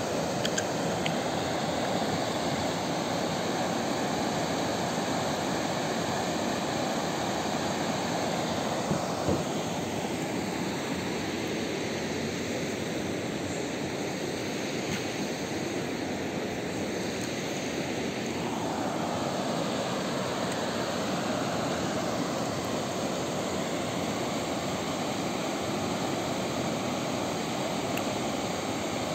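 Steady rush of the Sesia river running over rapids and a stony bed, a little softer for a few seconds in the middle.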